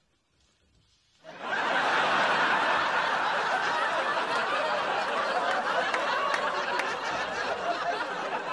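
Sitcom studio audience laughing, with scattered claps and whoops. It comes in loud about a second in, after a moment of silence, holds steady, and starts to fade near the end.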